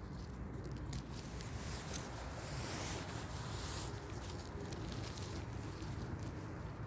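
Wind rumbling on the microphone, with scattered rustling and crackling from the leaf litter of the forest floor.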